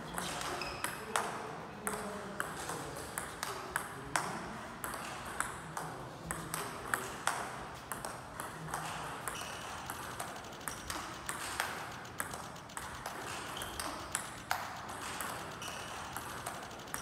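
Table tennis rally: a celluloid-type ball clicking off the table and off a chopping paddle in a steady rhythm of about two hits a second, with short squeaks of shoes on the sports floor as the defender moves forward and back.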